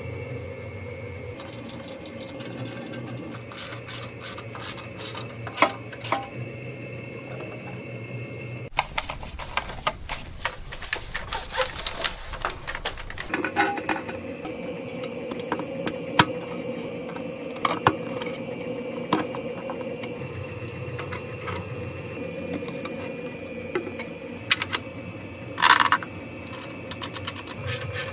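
Hand assembly on a motorcycle's electrics: irregular light clicks and taps of plastic and metal parts being handled and snapped together, over a steady workshop hum. A rustling stretch of handling noise comes in the middle, and a short burst of louder clicks near the end.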